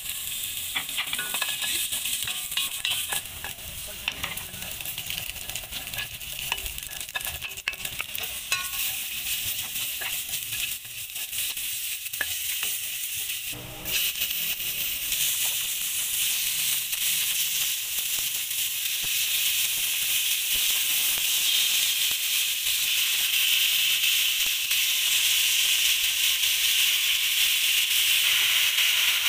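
Ginger sautéing in hot oil in a stainless steel pot, a crackling sizzle with scattered clicks. About halfway through, after a cut, raw chicken pieces are frying in the pot, and the sizzle turns into a steady hiss that grows louder toward the end.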